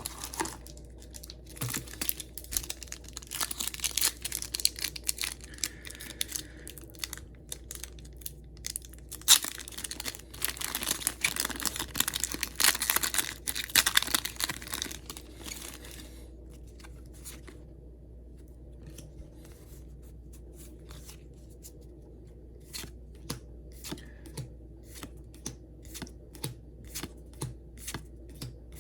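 Foil Pokémon TCG booster pack wrapper being torn open and crinkled, then a steady run of light clicks, about two a second, as the cards inside are flicked through one by one.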